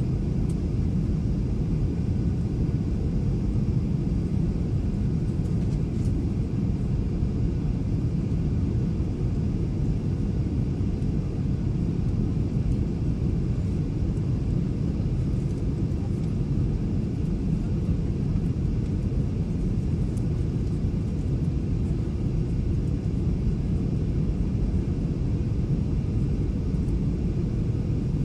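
Steady low rumble inside the cabin of a Boeing 737-900ER on approach with its flaps extended: the sound of its CFM56-7B engines and the airflow past the fuselage and wing, even in loudness throughout.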